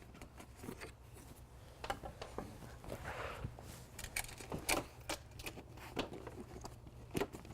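Scattered light clicks and knocks with some rustling: the coaming pieces and rib-lock fittings of a folding canoe's frame being unpinned and pulled apart by hand.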